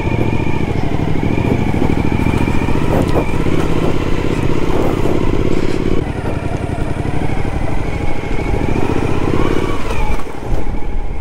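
Suzuki adventure motorcycle's engine running at low speed on a dirt road, heard on the bike, with a steady pulsing engine note. The sound changes abruptly about six seconds in.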